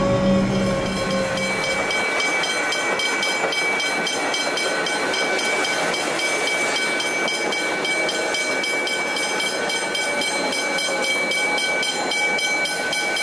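Level-crossing bells ringing with fast, even strokes and steady high tones while an EDI Comeng suburban electric train runs through the crossing. A low train rumble fades out in the first second or two.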